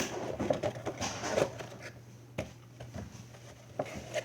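Hands handling Funko Pop vinyl figures and their cardboard boxes: scattered light clicks and rustles, with one sharper tap about two and a half seconds in.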